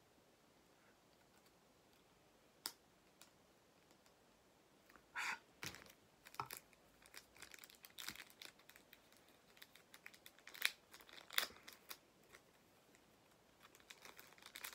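Plastic wrapping crinkling and small plastic parts clicking as a model airliner and its stand are unwrapped and handled by hand. Near silence for the first five seconds or so, then a run of crinkles and sharp clicks, with two louder snaps near the end.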